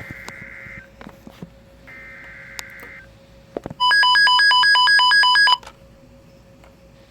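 Emergency Alert System SAME header on the radio: two buzzy digital data bursts of about a second each, then a loud, rapidly pulsing electronic alert tone lasting about two seconds, all over a faint steady hum. It signals that a severe thunderstorm warning is about to be read.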